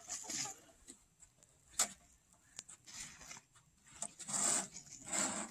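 Mostly quiet, with a single sharp click about two seconds in and brief rough scraping on snow near the end.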